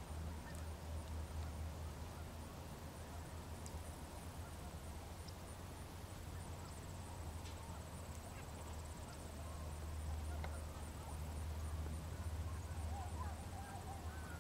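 A steady low rumble with faint bird calls over it, more of them in the last few seconds.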